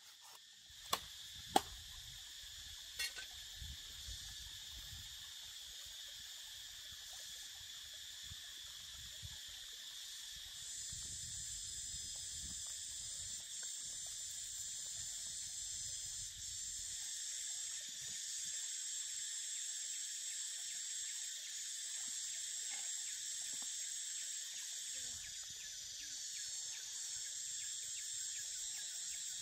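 Steady high-pitched chorus of insects, with a few light knocks in the first three seconds. About ten seconds in, the chorus grows louder, with a higher layer joining it.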